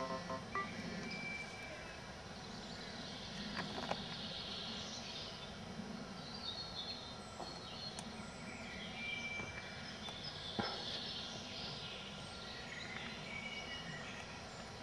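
Faint steady background noise with small birds chirping now and then in short high notes, and a few light clicks.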